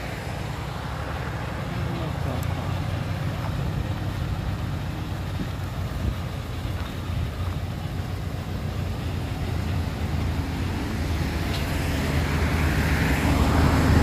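Hyundai dump truck's diesel engine running as the truck drives slowly off the road into a yard, growing louder and revving up near the end.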